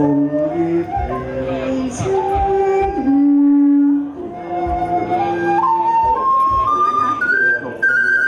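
Melody on a flute-like wind instrument, played as held notes. A long low note comes in the middle, then the tune climbs step by step to a high held note near the end.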